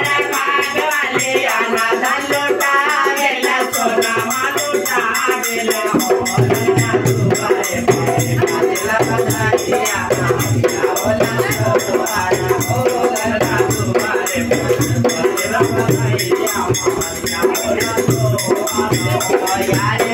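Women singing a folk song together, accompanied by a rattling hand percussion, with a dholak drum coming in with a steady beat about six seconds in.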